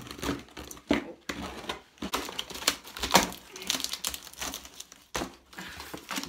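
Packing tape on a cardboard box being slit open and the cardboard flaps pulled back, with the plastic bag inside crinkling: an irregular run of sharp scrapes, rustles and crackles.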